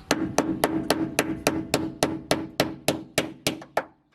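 A rapid, evenly spaced series of about fourteen sharp knocks, roughly three and a half a second, over a steady low hum, stopping abruptly.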